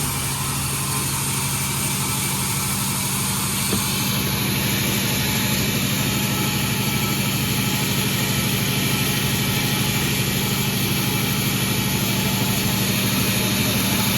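Sawmill's engine running steadily at an even speed, with a single light click about four seconds in.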